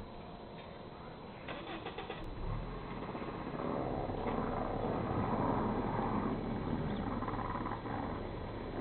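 Wind gusting and buffeting the microphone, a rumbling rush of noise that swells up a couple of seconds in and stays strong.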